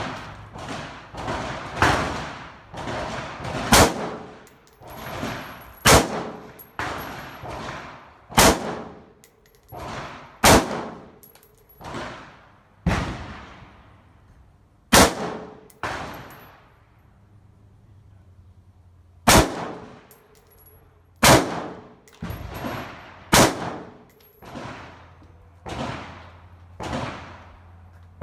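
Semi-automatic AR-15 rifle shots fired one at a time, about one every second or two, each sharp crack followed by ringing echo and fainter shots in between. The firing pauses briefly past the middle.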